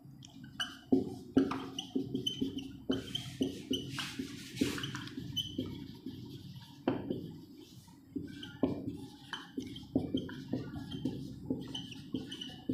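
Whiteboard marker writing on a whiteboard: irregular short squeaks and taps as each stroke is drawn, with a few longer scratchy strokes in the first half.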